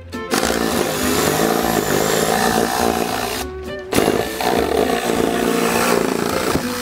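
Jigsaw running and cutting through clapboard siding. The blade stops briefly about halfway through, then starts again. Background music plays underneath.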